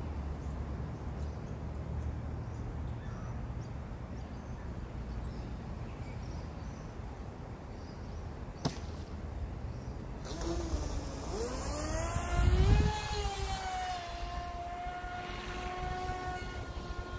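Radio-controlled speed boat's motor running out on the water: from about ten seconds in, a whine that rises in pitch, then holds steady at speed. A short low rumble comes about two-thirds through, the loudest moment.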